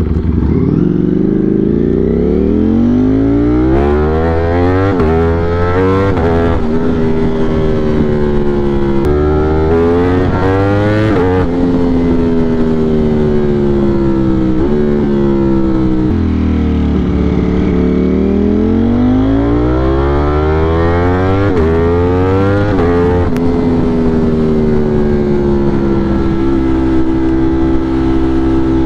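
Ducati Streetfighter V4's V4 engine accelerating through several upshifts, its pitch climbing and dropping back at each gear change. It eases off and falls in pitch for a few seconds in the middle, then pulls through more gears and settles into a steady cruise near the end, with wind noise throughout.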